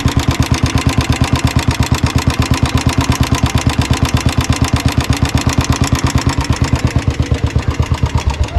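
Royal Enfield single-cylinder motorcycle engine idling with an even beat of about ten pulses a second, carrying the 'tik tik' noise the owner wants cured; the mechanic puts it down to old, low engine oil and expects an oil change to fix it.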